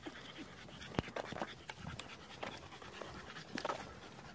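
A dog panting in quick, uneven breaths while out walking.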